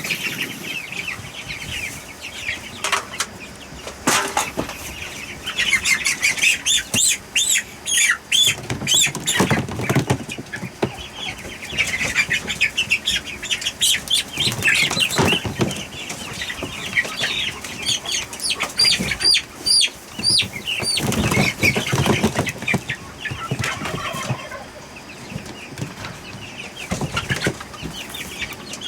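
A group of young poultry peeping and chirping in quick, high calls, with bouts of wing flapping and several sharp knocks as the birds are handled and moved in buckets.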